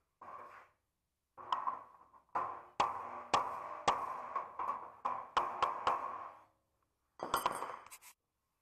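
Welding arc crackling in bursts as a patch is butt-welded into sheet-steel bonnet panel, with sharp pops through it. There is a short burst at the start, a run of about five seconds, then another short burst near the end.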